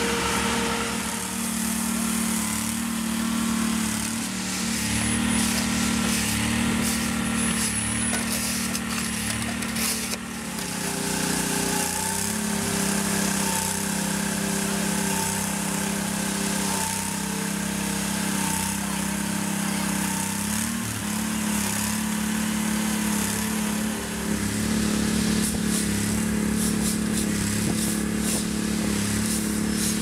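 Small engine of a kerb-extruding machine running steadily at constant speed; its pitch shifts about ten seconds in.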